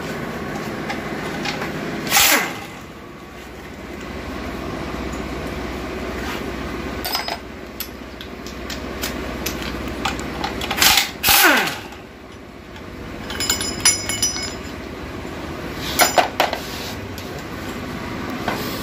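Cordless drill/driver run in short bursts to back out bolts on an automatic transmission case. Its motor whines down in pitch each time the trigger is let go: once about two seconds in, and twice around the middle. Light metallic clinks of bolts and parts follow, over a steady hum.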